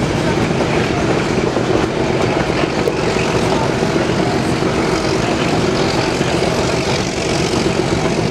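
Narrow-gauge train rolling along the track, heard from an open-sided passenger car: a steady, loud rumble and clatter of the wheels on the rails, with a faint steady tone running under it.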